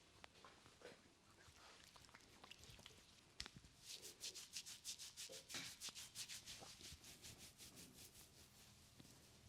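Hands rubbing briskly over hair and scalp in a head massage: a few light ticks, then from about four seconds in a quick run of scratchy strokes, about five a second.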